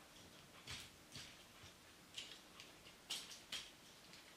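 Faint plastic clicks and ticks from the parts of a Transformers Generations Voyager Class Doubledealer action figure being handled and moved during transformation: several small, scattered clicks, the loudest two a little after three seconds in.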